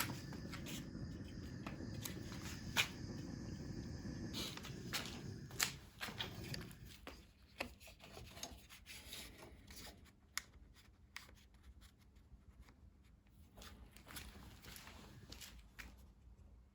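Rubbing and handling noises with many scattered light clicks and taps; a low rumbling noise underneath fades out about seven seconds in.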